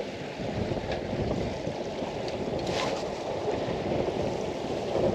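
Choppy water lapping and slapping against the hull of a small boat drifting at anchor, with wind rumbling on the microphone.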